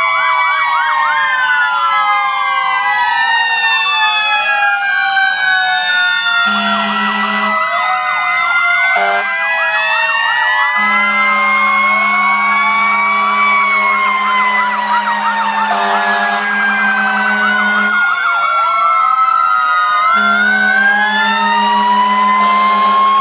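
Several fire apparatus sirens sound together as a funeral salute, in overlapping rising and falling wails broken by fast yelps. A low air horn joins in long blasts several times, the longest about seven seconds.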